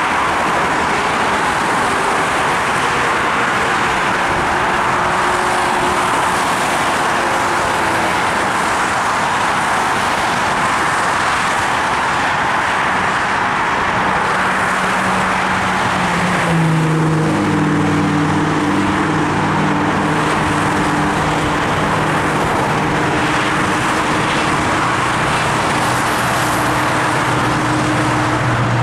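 Steady highway traffic noise from cars and trucks passing below. About halfway through, a low steady engine hum joins in as a GO Transit diesel commuter train goes by, growing louder near the end as it passes under the bridge.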